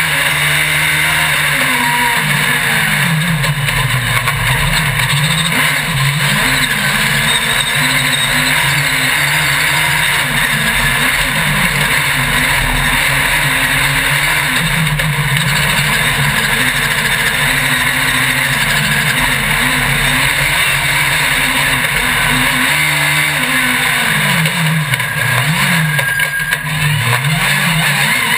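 Racing engine heard from onboard, revving hard and falling off again and again as the driver goes on and off the throttle and shifts through the run, under a steady hiss.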